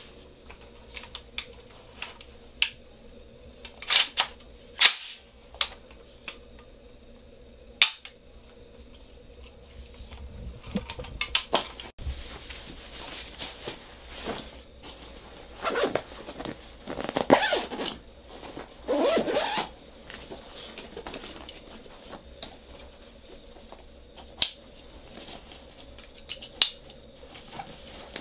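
Handling noises of a rifle and a soft gun case: scattered sharp clicks and knocks, with a stretch of fabric rustling and scraping from about 15 to 20 seconds in as the nylon case and bags are moved and folded.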